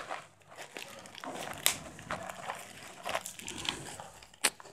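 Black plastic courier bag crinkling and crackling as it is gripped and cut at its seal with a knife blade, with two sharp clicks, one about midway and one near the end.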